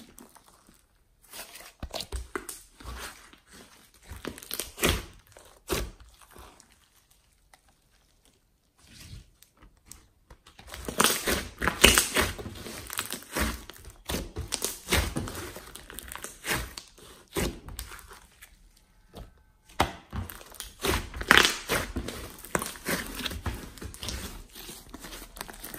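Hands stretching, folding and squeezing a large lump of glossy slime mixed with clay and glitter, giving dense runs of small sticky crackles and pops. There is a lull about six to ten seconds in and another near twenty seconds, and the crackling is busiest just after each lull.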